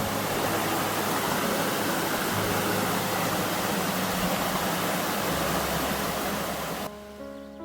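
Water rushing in a mountain stream: a steady, loud rush of noise that cuts off suddenly near the end, with background music faintly underneath.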